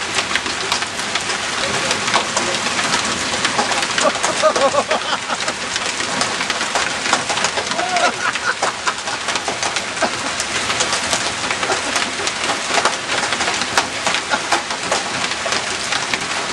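Hail falling heavily: a dense, steady clatter of countless sharp hailstone impacts over a constant hiss.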